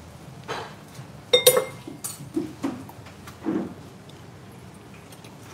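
Dishes and metal utensils clinking and knocking on a counter: about half a dozen separate knocks and clinks. The loudest, about a second and a half in, rings briefly.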